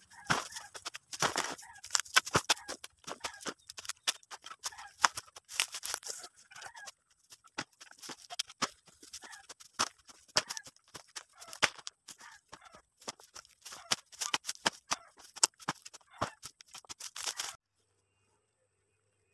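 Soil being shovelled over the burning opening of an earth-covered charcoal mound: rapid, irregular scraping and crunching of the tool in dirt, with crackling from the fire, as the kiln is sealed to smother the flame. The sound cuts off suddenly near the end.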